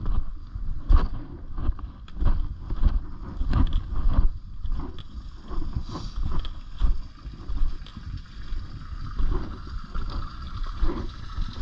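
Husqvarna FE 250 four-stroke single-cylinder dirt bike being ridden off-road. The engine note surges and drops unevenly, with repeated knocks and clatter and wind buffeting on the microphone.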